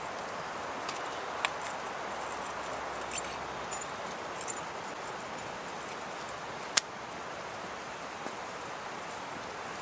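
Open wood campfire crackling, with scattered sharp pops, the loudest about seven seconds in, over a steady rush of wind.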